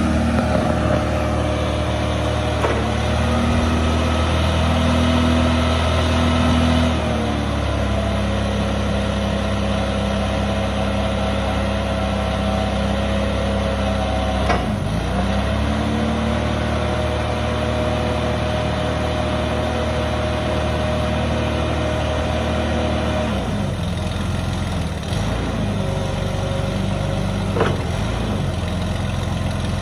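Toyota 7FGU45 forklift engine running steadily while the truck drives and works its mast, with a steady whine over the engine note. It is louder for the first several seconds, then settles lower.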